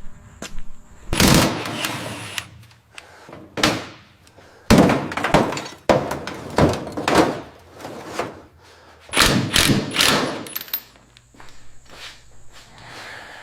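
An irregular run of heavy knocks and crunching, scraping breaks, some lasting about a second, with short clicks in between.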